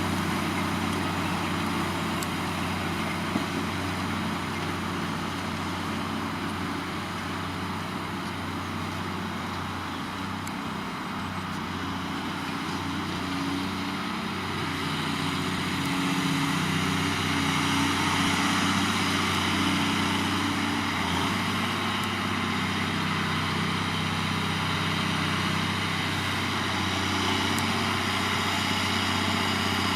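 New Holland tractor's diesel engine running steadily while ploughing, growing louder about halfway through.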